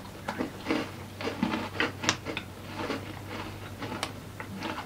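People crunching and chewing firm vanilla sandwich biscuits with a soft lemon cream filling (Hill lemon cream biscuits): irregular crisp crunches and small clicks.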